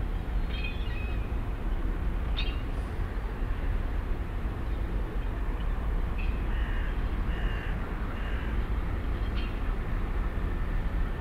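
Steady low rumble of the large passenger-and-vehicle ferry's engines as the ship passes close by. Several short bird calls sound above it, about a second in and again six to eight seconds in.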